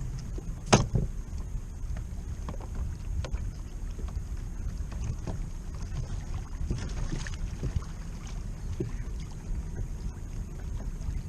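Small water sounds and wind noise on the microphone aboard a fishing kayak, with one sharp knock about a second in and scattered light taps of gear against the hull.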